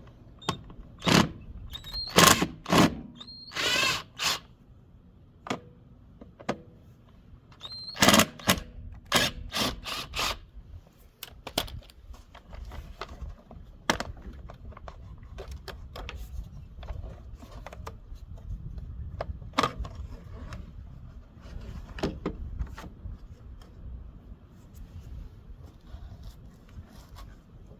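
Cordless driver with a T25 Torx bit backing out the mower's cover screws in several short bursts of motor whine, mixed with clicks and clatter of tools and parts being handled. The driving is busiest in the first ten seconds, and light handling clicks follow.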